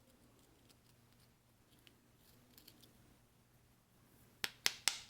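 Small metal valve parts and hand tools being handled: faint ticks and scrapes, then a quick run of sharp clicks near the end.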